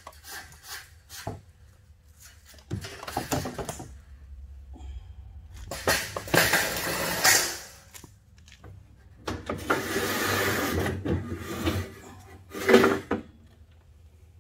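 Galvanized metal incubator trays scraping and clattering along their metal runners as they are pulled out, in several separate scraping pushes, the longest about two seconds, with a loud knock near the end.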